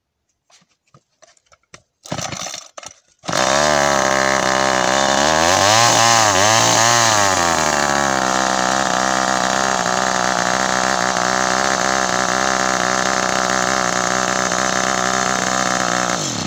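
Old McCulloch two-stroke chainsaw catching about three seconds in after a short rattle, revving up and down twice, then running at a steady speed until it cuts off near the end.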